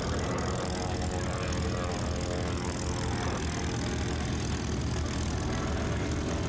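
P-51 Mustang's Packard Merlin V12 running at low taxi power with its propeller turning, a steady, loud engine note as the fighter taxis close by. The pitch slides down a little as it goes past.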